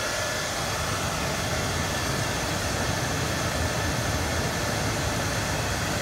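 Handheld hair dryer running at a steady speed, blowing air into the base of a small clay charcoal furnace to fan the fire: a steady rush of air with a thin high whine, over an uneven low rumble.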